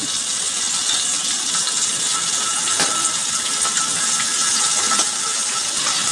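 Food frying in hot oil in a pan: a steady loud sizzle with a few sharp pops of spattering oil.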